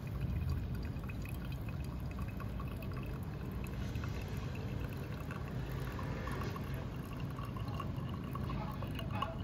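Liquid pouring and dripping during a V60 pour-over coffee brew, with a few light clicks near the end.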